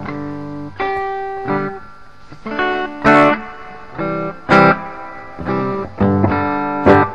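Clean electric guitar played through a small solid-state AXL G20R amp set with the treble down and reverb up. Picked notes and chords ring out and decay, with harder-struck chords about three, four and a half and seven seconds in.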